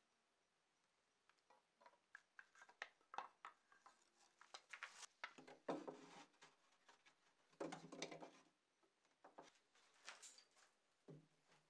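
Wooden parts of a box bellows being handled and fitted: scattered light clicks and taps of wood on wood, with two louder knocks in the middle and a smaller one near the end.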